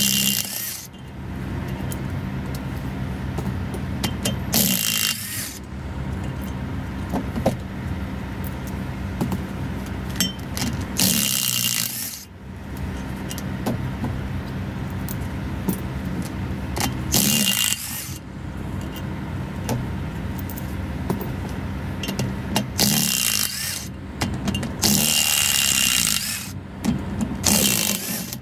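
DeWalt cordless impact wrench hammering in about six short bursts on the bolts of a truck's brake rotor hub. A steady low mechanical hum runs underneath.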